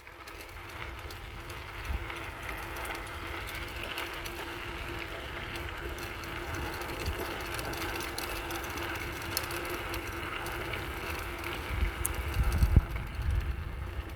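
Bicycle riding over a forest dirt track: steady tyre and drivetrain noise with a faint held hum, and a low rumble that grows with jolts near the end.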